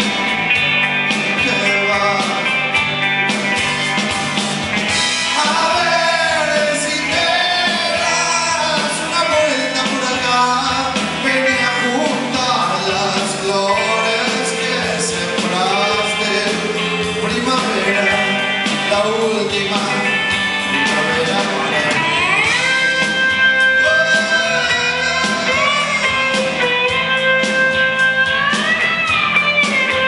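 Live rock band playing: a man sings over electric guitars and drums. About two-thirds of the way through, the singing gives way to a sustained lead guitar line with gliding, bent notes.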